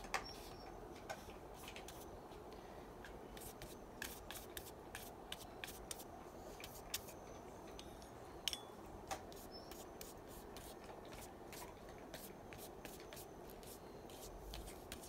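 Faint scratching and rubbing with scattered light clicks and taps from art supplies being handled: a water-soluble graphite pencil working on paper at first.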